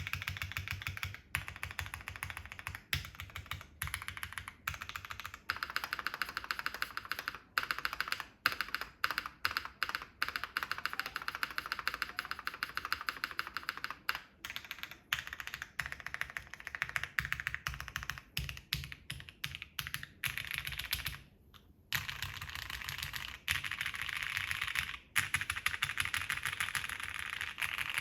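Typing on an ai03 Vega mechanical keyboard with linear Gateron Ink switches: a fast, continuous stream of key clacks, with a short pause about three quarters of the way through.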